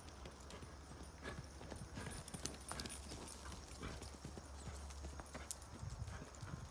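A horse's hoofbeats on the sand footing of a round pen as it canters under a rider, a continuous run of beats over a low steady rumble.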